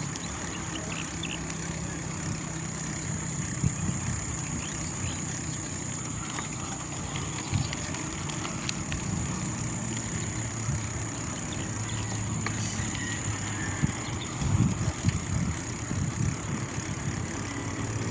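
Bicycle ridden along a concrete road: steady low rumble of tyres and wind on the handlebar-mounted microphone, with a few louder bumps, clustered in the last few seconds.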